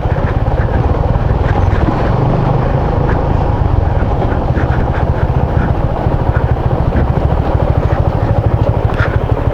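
Motorcycle engine running steadily while riding, with a constant rush of wind and road noise.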